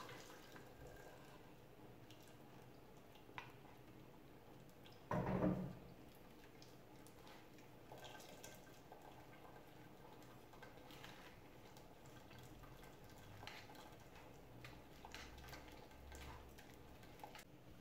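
Broth trickling and dripping through a plastic mesh strainer into a pot, then a metal spoon pressing and scraping blended chile through the strainer with faint scrapes and light ticks. One brief, louder thump about five seconds in.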